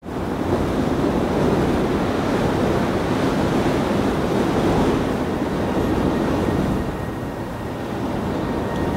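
A steady rushing noise, easing a little near the end.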